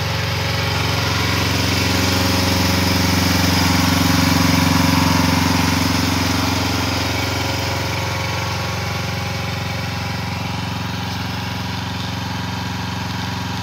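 Small engine of an AGT Industrial LH12R mini excavator running at a steady idle, growing somewhat louder around the middle and then easing back.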